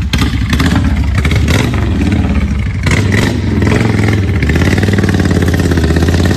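Cruiser motorcycle engine running loud and close as the bike rolls off. Its note climbs steadily in the last couple of seconds as it accelerates away.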